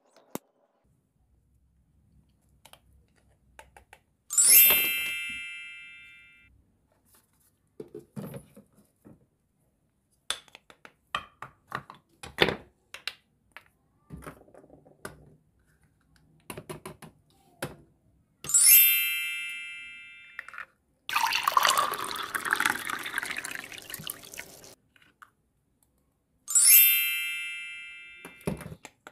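Toy kitchen playset in use: a bright electronic chime sounds three times, each ring fading over about two seconds, with light plastic clicks and taps in between. About two-thirds of the way through, water runs for a few seconds, as from the toy sink's faucet.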